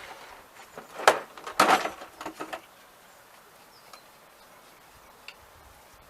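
The last of a power drill's noise dies away, followed by a few sharp knocks and clicks of tools or parts being handled, the loudest two close together about a second in.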